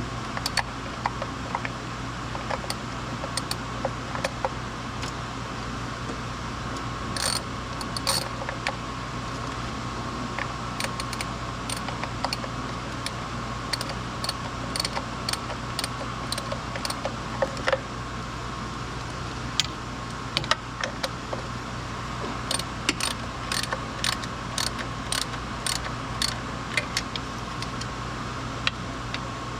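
Hand tools and metal parts clicking and clinking during engine reassembly, in scattered sharp clicks, some in short clusters, over a steady background hum.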